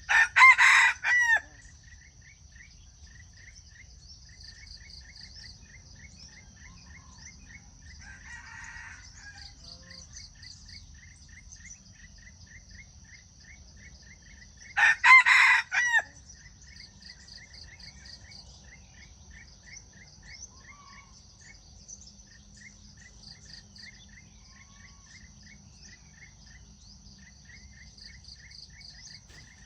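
Red junglefowl rooster crowing twice, about fifteen seconds apart, each crow short and clipped. Under them, insects chirp steadily without a break.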